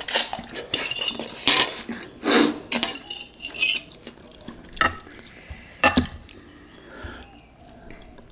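Ceramic bowl and metal fork clinking and knocking against dishes: a quick run of clinks at first, then two sharp single clinks a few seconds later.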